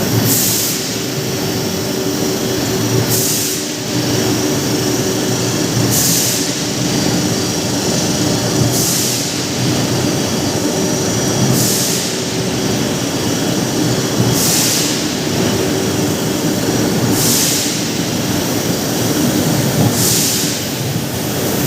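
Combined bar drawing machine for 32 mm bar running steadily with a constant hum and a short hiss about every three seconds, marking its repeating work cycle.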